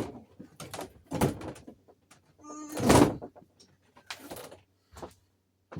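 A door being handled: a run of knocks and bumps, with a longer grating sound about three seconds in that is the loudest.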